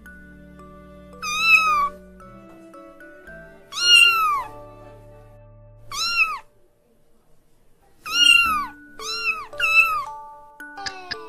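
Kitten meowing: six short, high meows, each rising and then falling in pitch, the last three coming in quick succession.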